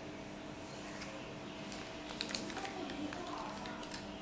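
Light, scattered clicks and crinkles of fingers handling a tablet's opened circuit board, casing and foil tape, over a steady faint hum.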